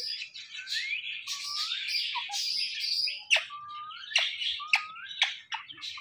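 Rose-ringed parakeet chatter: a dense stream of chirps and squawks broken by several short rising whistles, with a few sharp clicks, the loudest about three seconds in.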